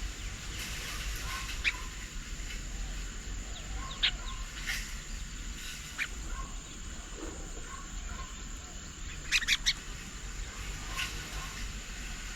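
Birds calling at intervals: short sharp calls every second or two, with a quick run of three about nine seconds in, over faint repeated softer notes and a steady high-pitched tone.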